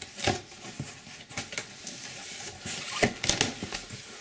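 Packing tape on a cardboard shipping box being cut with a small flathead screwdriver and the box flaps pulled open: irregular scraping, tearing and cardboard handling sounds, with a louder sharp knock about three seconds in.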